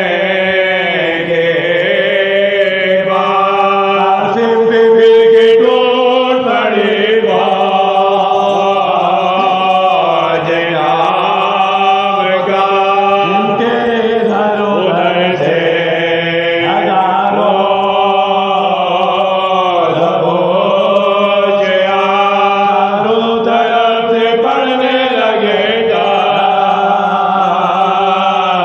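Soz-khwani: male voices chanting a Shia mourning lament without instruments, the melody bending and gliding over a steady held note.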